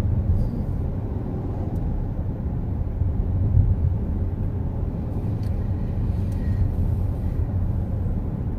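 Steady low rumble of road and engine noise inside a moving minivan's cabin.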